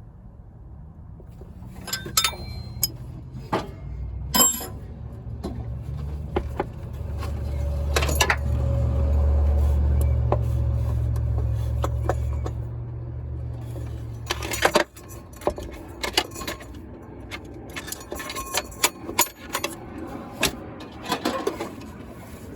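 Hand tools and metal parts clinking and knocking in irregular light strikes. Under them a low engine rumble builds, holds and then stops abruptly about two-thirds of the way through.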